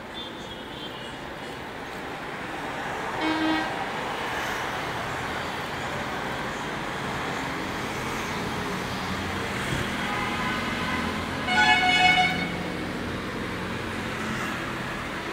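Street traffic running steadily below, with vehicle horns honking: a short toot about three seconds in and a louder honk about twelve seconds in.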